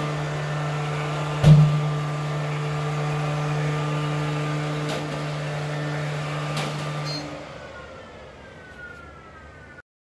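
Philips SmartPro Active robot vacuum cleaner running in wall-following mode on a tiled floor: a steady motor and fan hum, with a single loud knock about a second and a half in and a few faint clicks. About seven seconds in the hum stops and a fainter, falling whine fades out.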